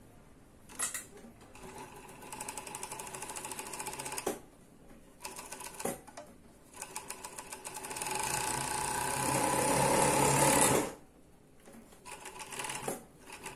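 Jontex JT-757F industrial overlock sewing a test seam through fabric just after threading: a fast, even chatter of needles and loopers, run in three goes. The last and longest run, about four seconds, gets louder partway through and stops abruptly.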